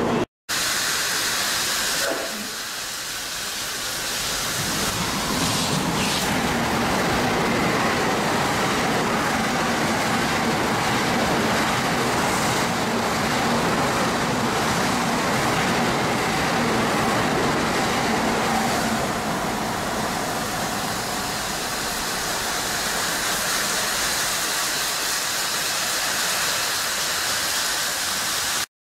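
Tokaido Shinkansen train running through a snow-covered station: a steady rushing noise from the passing train, with a hiss from the snow it blows up.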